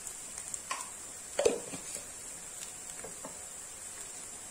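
A plastic cooking spatula clicks lightly against a non-stick frying pan of frying onions, with one louder knock about one and a half seconds in, over a faint steady high hiss.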